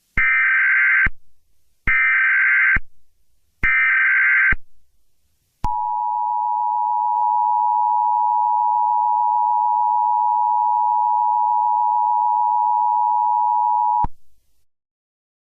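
Emergency Alert System header: three one-second bursts of digital data tones (the SAME header), then the steady two-tone attention signal for about eight seconds, which cuts off suddenly. This sequence marks the start of an emergency alert broadcast.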